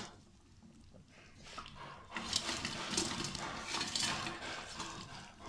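Fried besan pakoras pushed off a steel plate into kadhi: soft wet plops and light scrapes of metal on metal, starting about a second and a half in.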